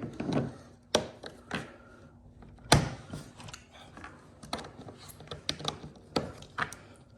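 Pliers clicking and knocking against a stuck pin in a plastic toolbox as it is worked out: irregular sharp clicks, the loudest about three seconds in.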